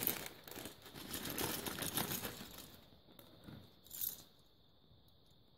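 Small clear plastic bag of minifigure parts crinkling and rustling in the hands for about three seconds, with one more short rustle about four seconds in.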